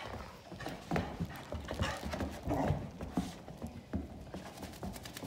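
Two English Springer Spaniels play-wrestling on a rug: irregular scuffling, paw steps and light bumps.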